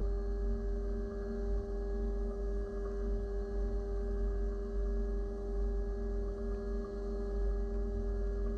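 Haas VF-2SS CNC mill's spindle and end mill running at a steady high speed, a steady whine with overtones, while cutting a part under a flood of coolant spray.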